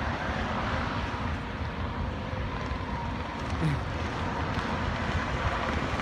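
Steady outdoor rumble of traffic, with a faint steady hum.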